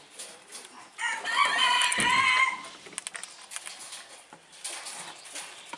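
A rooster crowing once, starting about a second in and lasting about a second and a half, over scattered light clicks.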